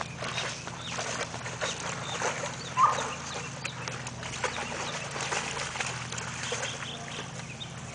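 Two dogs wading and playing in shallow pond water, with scattered splashes and sloshing throughout. A little under three seconds in, a brief high-pitched call stands out as the loudest sound.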